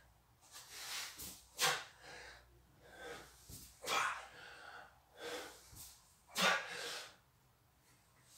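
A man breathing hard through the nose and mouth while doing pull-ups: a sharp, forceful exhale about every two and a half seconds, one with each rep, with softer breaths in between.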